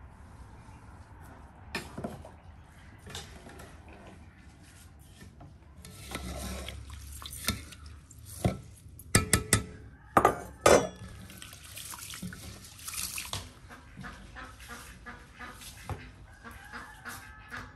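Rice being washed in water in an enamel basin. A metal spoon stirs and scrapes through the wet grains, with a cluster of loud, sharp clacks against the basin around the middle. Near the end, hands swish and rub the rice in the water, giving many small quick clicks.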